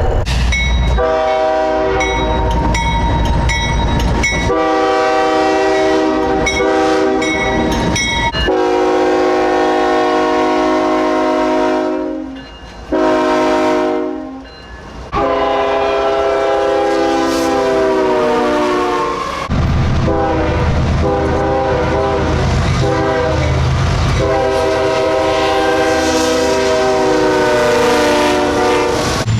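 Nathan Airchime K5HL five-chime locomotive air horns sounding a series of long and short blasts, in several back-to-back recordings of passing trains. During the first eight seconds or so, wheels click over the rail joints under the horn.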